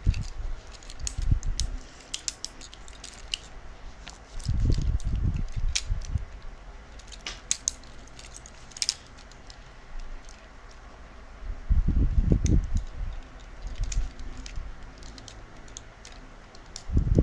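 Hard plastic and die-cast parts of a Voltes V combining robot toy clicking and knocking together as they are handled and fitted, with several dull thumps of handling in between.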